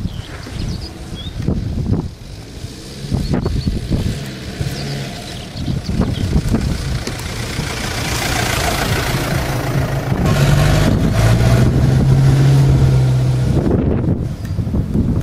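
Honda Horizon (Isuzu Trooper) 4x4 engine driving off-road, with repeated knocks and thumps from the body and suspension over the first few seconds. The engine then revs harder, growing louder and higher in pitch in the second half before easing off near the end.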